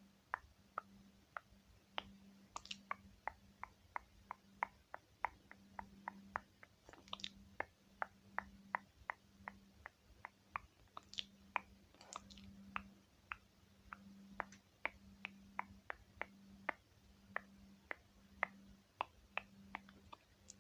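ASMR lipstick application: a quick, even run of soft clicks and taps, about three a second, with a few brighter crisp ones among them.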